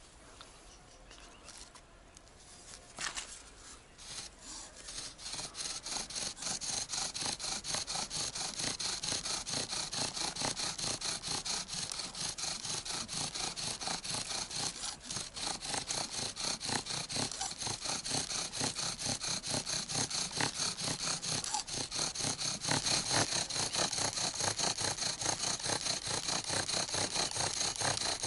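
Bow drill: a wooden spindle driven back and forth by a bow strung with tent guy-line cord, grinding into a piece of bark in a fast, steady rhythm of strokes to make a friction ember. A knock comes about three seconds in, the drilling starts just after it and grows louder near the end.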